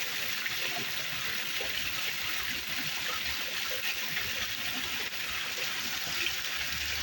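Water pouring steadily over a newly built decorative landscape waterfall, an even splashing rush that holds constant.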